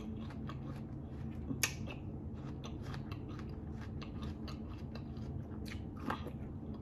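A person chewing food close to the microphone, with many small wet mouth clicks over a steady low hum, and a sharper click about a second and a half in and again near the end as another bite is taken.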